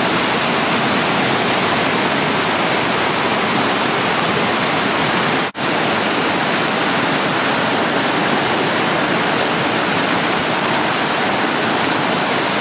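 Flooded creek's fast, churning floodwater rushing in a steady, loud wash of noise, with a split-second dropout about halfway through.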